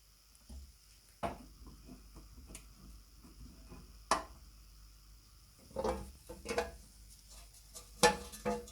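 Scattered light knocks and clinks of workshop handling of the restored darkroom lamp's parts: a sharp tap about a second in, another about four seconds in, and quick clusters of clinks near the middle and near the end.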